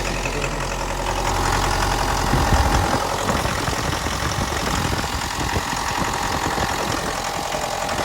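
Mitsubishi L200's 2.5-litre diesel engine idling with a steady clatter, the engine knock this used truck is suspected of. There is a brief swell about two and a half seconds in.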